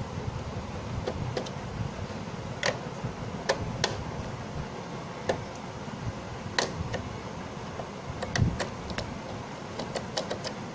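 Screwdriver working the small screws out of an Epson L565 inkjet print head: scattered sharp metal clicks and ticks at irregular intervals, over a steady low background rumble.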